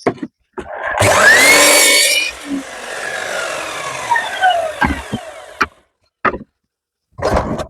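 Electric power saw spinning up with a rising whine, cutting through a feather edge board offcut for about a second, then winding down with falling tones as the blade slows. A short clatter near the end.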